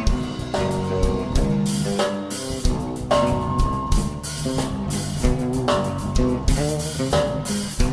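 Background music: an instrumental stretch of a song with drum kit and guitar, the drums striking steadily and no singing.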